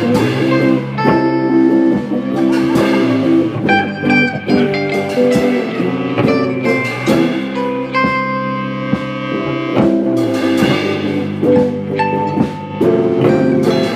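Instrumental passage of a band's song: guitar played over a drum kit.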